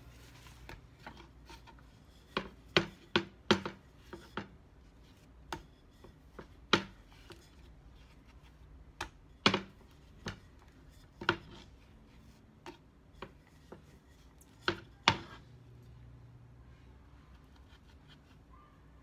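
Wooden rolling pin knocking and clacking against a plastic cutting board as dough is rolled out: about twenty sharp, irregular knocks that stop about fifteen seconds in.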